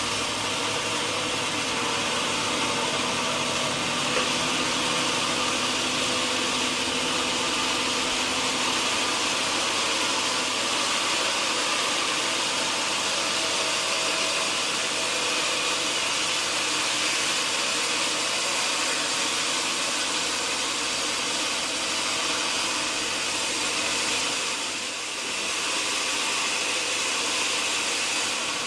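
Sawmill machinery running steadily, an even mechanical whir with faint steady tones, briefly dipping in level near the end.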